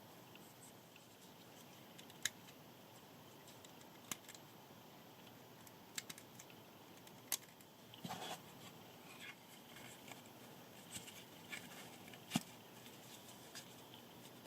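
Faint handling sounds: a handful of sharp, isolated clicks a second or two apart and a short rustle a little past the middle, over a low steady hiss.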